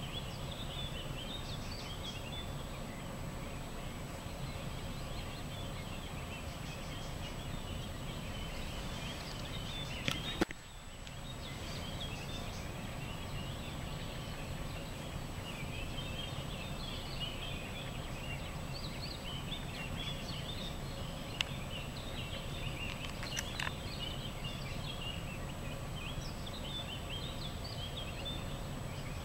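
Common pheasant chicks peeping: many short, high chirps in a continuous scatter, over steady low background noise. The sound briefly drops out about a third of the way through.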